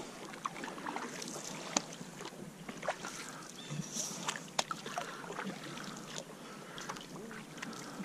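Canoe paddles dipping and pulling through calm water, with water dripping and scattered light knocks and clicks.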